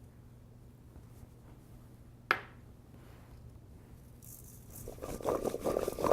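Cut root vegetables being tossed in a bowl with oil and seasoning: one sharp clink about two seconds in, then from about four seconds the pieces rattle and rub against the bowl in irregular bursts, over a low steady hum.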